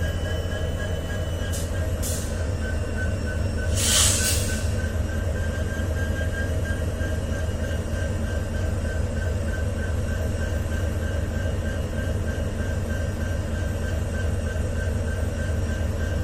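WDG4 diesel locomotive's EMD 16-710G3B two-stroke engine idling with a steady low hum and a thin steady whine above it. A short hiss cuts in about four seconds in.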